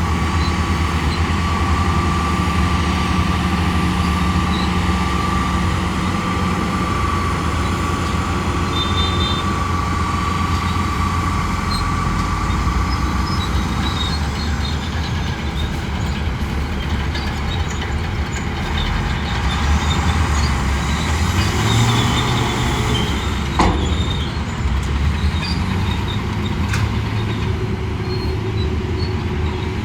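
Shantui crawler bulldozer's diesel engine running steadily under work, with a high, steady squeal through the first half and one sharp knock about two-thirds of the way through.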